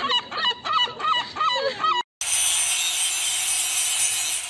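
A gull giving its long call, a rapid series of loud yelping notes about three a second, which breaks off abruptly about two seconds in. A steady hiss follows.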